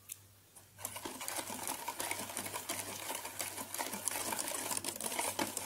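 Wire balloon whisk beating a thin chocolate syrup of cocoa powder, sugar and water in a metal saucepan. It makes a fast, steady rattle of the wires against the pan, starting about a second in.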